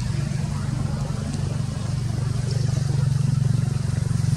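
A vehicle engine running at a steady pitch with a low, rapidly pulsing drone, growing gradually louder.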